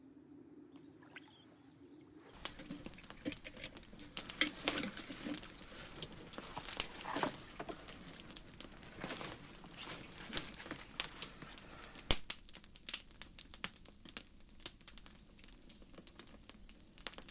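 Close rustling and crinkling with many irregular sharp clicks and snaps, starting about two seconds in, and one sharper knock near the middle.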